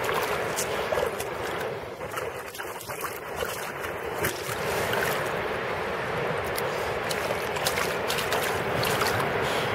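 Shallow seawater splashing and sloshing around a dog that is pawing and nosing at the seabed to bury a stick. Many small, irregular splashes sound over a steady wash of water.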